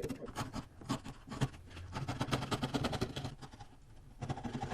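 Rapid, irregular scraping and ticking of a tool working wood as the waste in a sawn rabbet joint is cleaned out.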